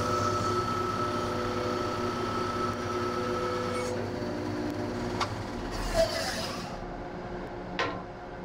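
A workshop machine's electric motor running steadily with a hum and several constant tones, slowly getting quieter. A few sharp knocks and clicks come in the second half, and the sound cuts off abruptly near the end.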